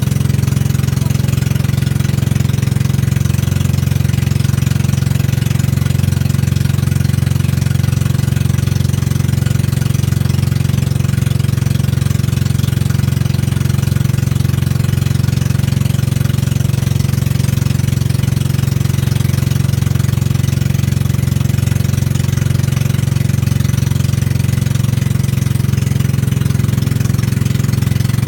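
A motorboat's engine running steadily while the boat is underway: a loud, unchanging low drone that holds the same speed throughout.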